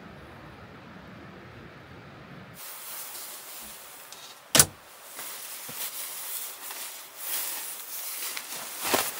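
A low, even background hum, cut off about two and a half seconds in. Then one sharp knock about four and a half seconds in, followed by the irregular rustling of quilted padded trousers being handled and pulled on.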